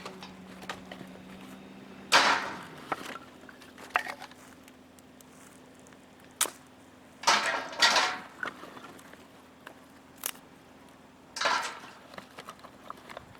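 Intermittent handling sounds: a few short rustling or scraping bursts, about two seconds in, twice around seven to eight seconds, and again near eleven and a half seconds, with scattered light clicks and knocks between them.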